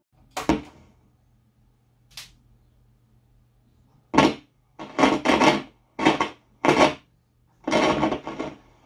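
Controls of an old Ei Melos Luxe IC radio-gramophone being worked. There is a click, then, from about four seconds in, five or six harsh scratchy bursts as the knobs are turned, over a faint steady low hum.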